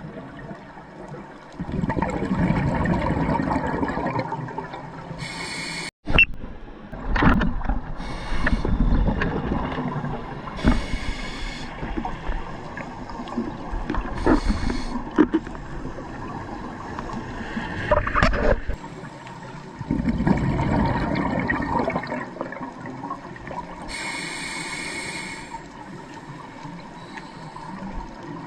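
Scuba diver breathing through a regulator underwater: several breaths, each a short hissing inhalation followed by a longer gurgling rush of exhaled bubbles.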